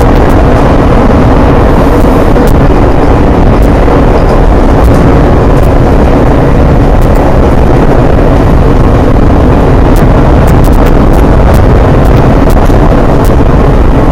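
Steady, loud rumble of an Amtrak passenger train running at speed, heard from inside the car: wheels on rail and the car body, with scattered faint ticks.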